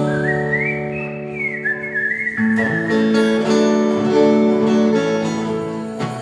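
Live band playing an instrumental passage of a country song: acoustic guitar chords under a high, wavering lead melody that rises early on and then drifts back down.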